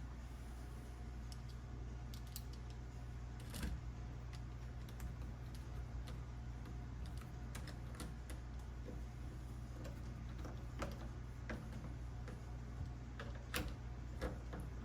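Small scattered clicks and taps of metal deadbolt lock parts and screws being handled, with louder clicks about four seconds in and twice near the end, over the steady low hum of a washing machine running.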